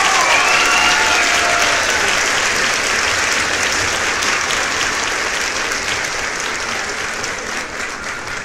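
Audience applauding, slowly dying down, with a few voices calling out in the first couple of seconds.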